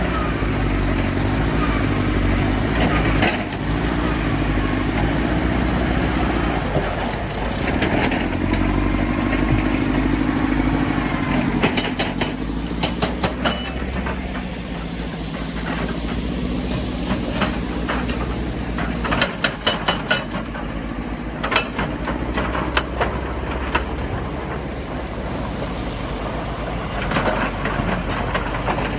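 Heavy diesel construction machinery running steadily, with several short clusters of sharp knocks and clatter, typical of rock being handled or crushed.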